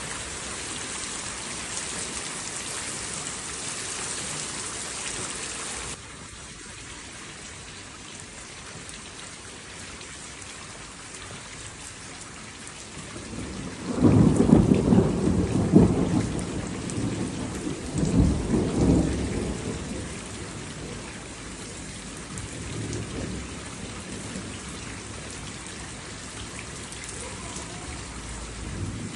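Steady rain of a thunderstorm; its hiss drops abruptly softer about six seconds in. About halfway through, thunder breaks in with a loud low rumble that swells a second time a few seconds later, then fades to a faint grumble under the rain.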